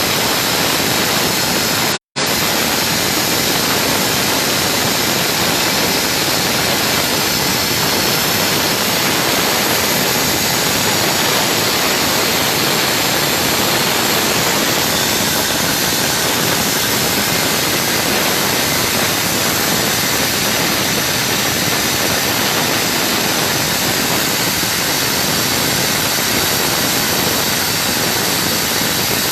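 Hangzhou Fortune oxygen production machine running with a loud, steady rushing noise, cutting out for a split second about two seconds in.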